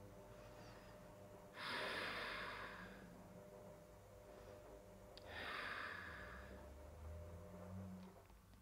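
A woman taking slow, faint yoga breaths while holding a pose: two long breaths, each lasting about a second and a half, starting about one and a half seconds in and about five seconds in.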